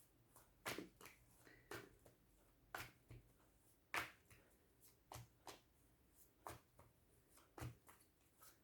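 Faint, scattered soft clicks and snaps of a tarot deck being handled, about a dozen irregularly spaced over several seconds.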